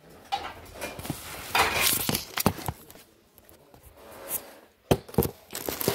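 Handling noise from a handheld phone being carried and moved: rustling with scattered clicks and knocks, and one sharp knock about five seconds in.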